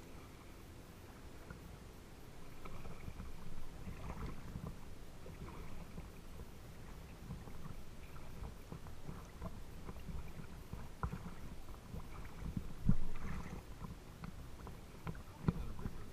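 Water lapping and slapping against a kayak hull just below the waterline, with many small splashes and drips. A louder knock or slap comes about 13 seconds in.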